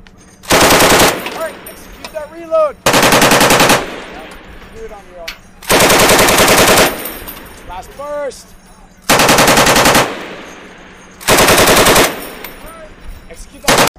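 Belt-fed machine gun firing on full automatic in five short bursts of about a second each, with a pause of one to two seconds between them, and a very brief burst right at the end.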